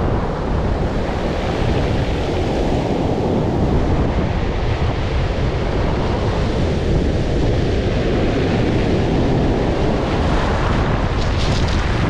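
Heavy Black Sea surf breaking and washing in foam up a pebble beach, a steady loud rush of water, with wind buffeting the microphone.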